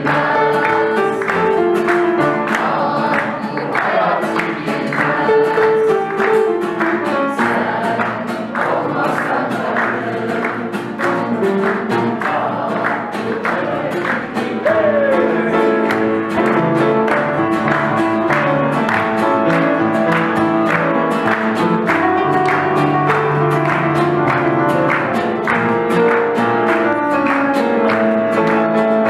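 Live song: a voice singing over strummed acoustic guitar and upright piano.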